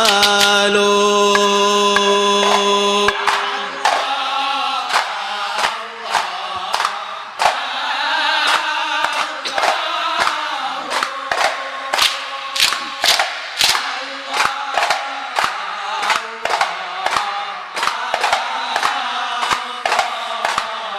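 A large men's chorus chanting sholawat in unison, opening on a long held note. From about three seconds in, the chant is accompanied by rhythmic, sharp group hand-claps and slaps, about two a second.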